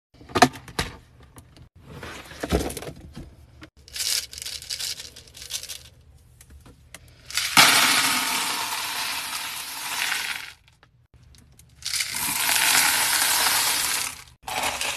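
Blue hard wax beads poured from a plastic tub into a clear plastic bin: a long rattling rush about 7.5 s in lasting about three seconds, then another about 12 s in. Before them, light clicks and knocks of a plastic storage box being opened.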